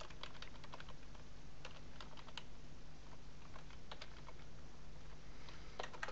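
Computer keyboard typing: irregular keystrokes in short runs with brief pauses, over a low steady hum.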